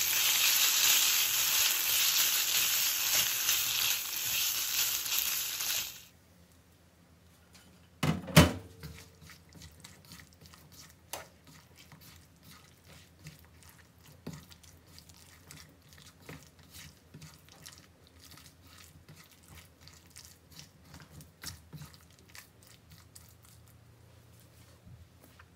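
Spaghetti and guanciale sizzling loudly in a frying pan as a silicone spatula tosses them. About six seconds in the sizzle cuts off suddenly. A couple of seconds later there is a single loud knock, followed by faint, irregular clicks and squelches as the spatula stirs the spaghetti through the egg and cheese sauce.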